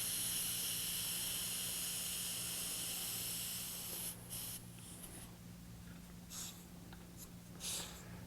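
CO2 inflator hissing as it fills a bicycle inner tube: a steady hiss that stops about four seconds in, followed by a few short hisses.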